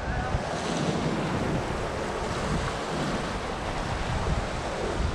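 Choppy sea washing and splashing against shore rocks, with wind buffeting the microphone in a steady low rumble.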